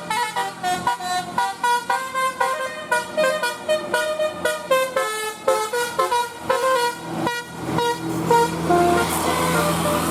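Bus telolet basuri horn playing a fast tune of short notes that step up and down in pitch. Near the end the notes thin out to a few longer held tones.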